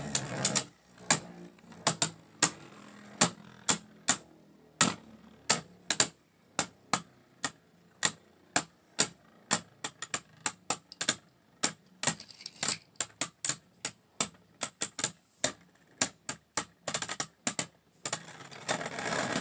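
Two Beyblade spinning tops clashing again and again in a plastic stadium: a long run of sharp clacks, a few a second, with quick flurries of hits about two-thirds of the way through and near the end.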